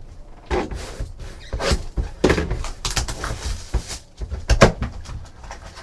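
Card boxes and pack wrappers being handled on a tabletop: a run of knocks and crinkling, with the loudest thump about two-thirds of the way through.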